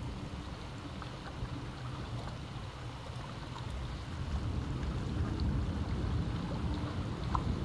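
Sea waves washing against the rocks at the foot of a cliff: a steady rushing that swells louder about four seconds in.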